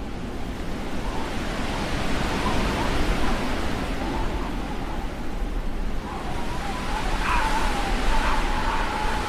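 Blizzard wind blowing in swelling gusts. A thin, wavering whistle comes through and strengthens from about seven seconds in.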